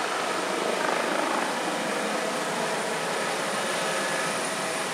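Rescue helicopter flying low overhead: a steady, even rotor and turbine noise.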